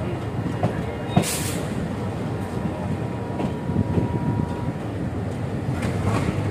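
WDM3A ALCO diesel locomotive running as it rolls slowly along the track, a steady low rumble heard from the side of the locomotive. A short hiss comes about a second in.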